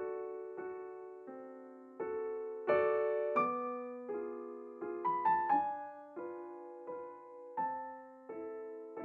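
Slow background piano music: single notes and soft chords struck about once a second, each ringing and fading before the next.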